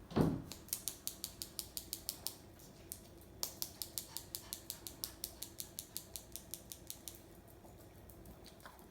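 A dog's claws clicking on a hard floor as she walks, a quick, even run of ticks about six or seven a second. There is a short thump at the very start, then two stretches of ticking with a pause of about a second between them.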